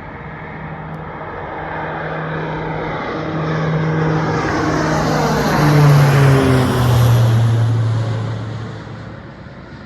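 Propeller airplane flying past: its engine and propeller tone grows louder, drops in pitch as it passes about six seconds in, then fades.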